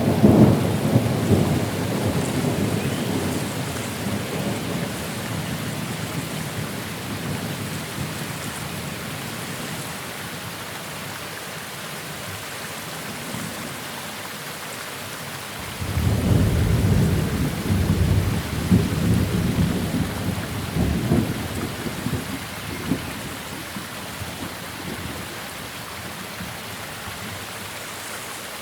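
Thunder rumbling over steady rain: one peal fades away over the first ten seconds or so, then a second peal breaks in suddenly about sixteen seconds in, crackling and dying down toward the end.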